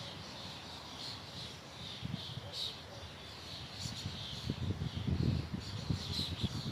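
Small songbirds chirping, many short high calls repeating over and over, over wind rumbling in gusts that grow stronger in the second half.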